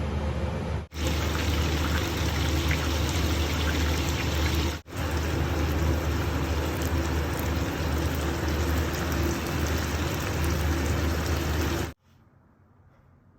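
Steady rushing noise with a low hum, broken by two brief dropouts, cutting off abruptly near the end.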